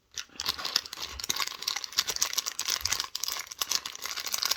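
Packaging of a sticker pack crinkling and rustling as it is handled, with many small crackles. It starts a moment in.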